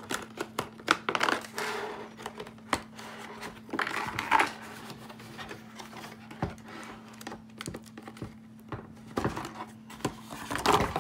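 Plastic twist-lock packaging fasteners being turned and pulled out of a cardboard box insert: irregular clicks and knocks of plastic on cardboard, with brief rustles of the cardboard being handled.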